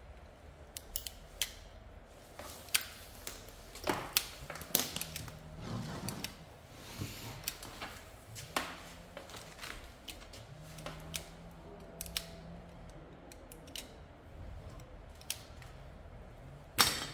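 Hand wire stripper snipping and clicking on electrical wire as the insulation is stripped, a run of irregular sharp snips and clicks. A louder clatter comes near the end.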